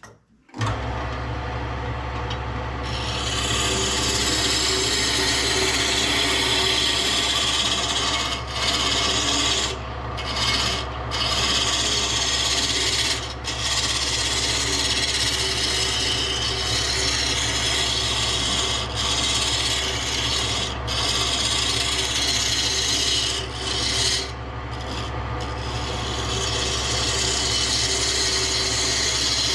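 Electric woodworking tool abrading wood: a steady motor hum under a continuous rasping, rubbing noise. It starts suddenly about half a second in, with several short dips as the work eases off the wood.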